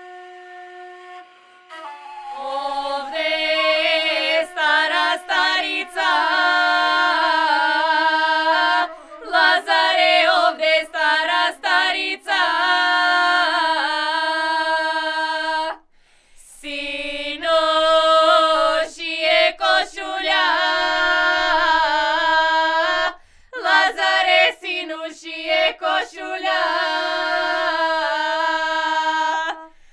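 A small group of girls singing a Macedonian lazarki ritual song for Lazarus Saturday, unaccompanied and in unison, in long phrases with short breaks between them. A held flute note ends just before the singing starts.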